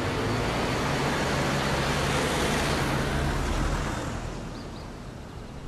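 A taxi car driving off past, its engine and tyre noise building and then fading away after about four seconds.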